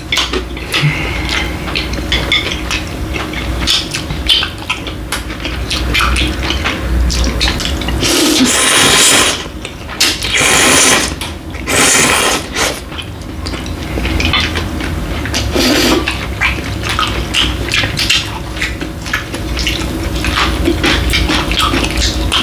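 Close-up mukbang eating sounds: two people slurping bibim-myeon noodles in sauce and chewing, with many small wet clicks and smacks. Several long, loud slurps come between about eight and thirteen seconds in.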